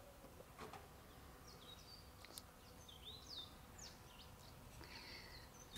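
Near silence outdoors, with faint bird chirps: a scatter of short, high twitters in the background.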